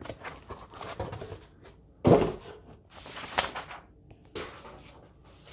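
A glossy magazine and its cardboard mailer being handled: rustling, a knock about two seconds in, then a longer sliding scrape of paper on cardboard as the magazine is drawn out and stood up.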